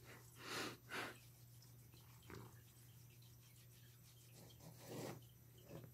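Near silence: room tone with a steady low hum, broken by a few soft breathy puffs, two close together within the first second, one just after 2 seconds and one about 5 seconds in.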